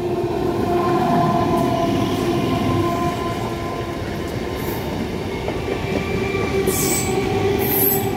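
Electric suburban local train, an EMU running under overhead wires, passing close by. Its carriages rumble steadily over the rails with a continuous squeal from the wheels, and short hissing bursts come near the end.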